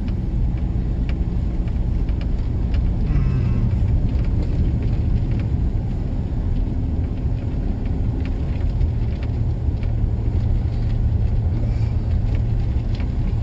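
Dodge Ram Rumble Bee pickup's Hemi V8 running with a steady low hum under tyre and road noise, heard from inside the cab while driving slowly.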